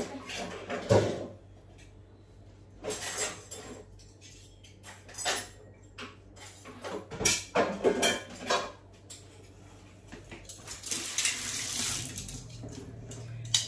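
Dishes and cutlery clinking and clattering in irregular bursts as a meal is dished up, with a longer rushing noise a little after ten seconds in.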